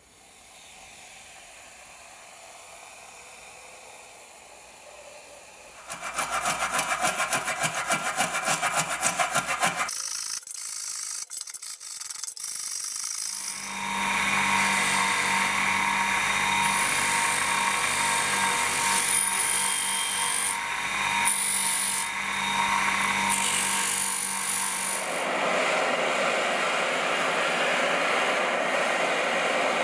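Fast, even scraping strokes and a few sharp clicks. Then a motor-driven wire brush wheel runs steadily against the rusty metal scabbard, scrubbing off rust, with a low motor hum under it. Near the end it gives way to the steady hiss of a gas torch flame.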